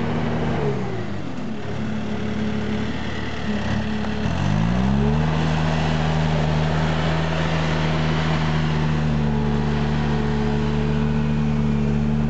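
Bobcat skid-steer loader's diesel engine working in the snow: its revs drop about a second in, dip again near four seconds, then climb back up and hold at a steady high pitch.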